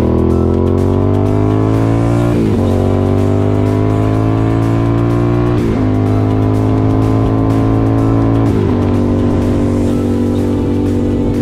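Sport motorcycle engine accelerating through the gears: the revs climb steadily, drop sharply at three upshifts, and after the last shift the engine holds steady at cruising speed.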